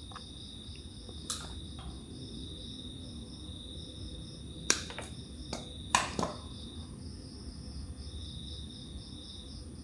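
Insects chirping steadily in a fast pulsing rhythm, with a few sharp clicks from hands working the wires of a motorcycle stator coil; the loudest clicks come about halfway through.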